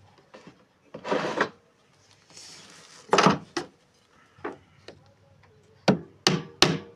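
Wooden door moulding being handled and knocked into place: a short scrape of wood, then sharp knocks on wood, ending in a quick run of about three knocks a second.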